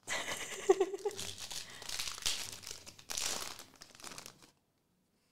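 Foil wrapper of a Star Wars Galaxy trading-card pack crinkling as it is picked up and torn open, stopping about four and a half seconds in.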